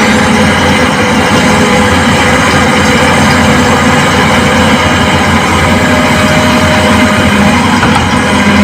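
Heavy diesel engine of construction machinery running steadily and loudly.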